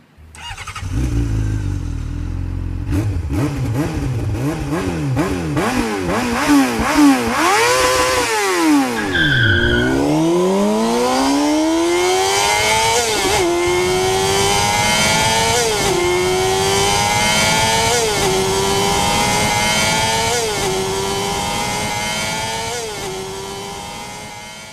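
Engine-revving sound effect. A low rumble gives way to a few revs rising and falling, with a brief high two-note tone about halfway. Then the engine accelerates up through the gears, its pitch climbing and dropping at each shift about every second and a half, and it fades out at the end.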